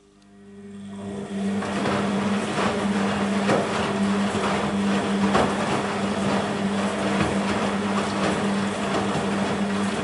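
BEKO WMB 51441 front-loading washing machine running mid-wash: its drum motor starts and its sound swells over about two seconds to a steady hum, with wet laundry and water sloshing in the turning drum.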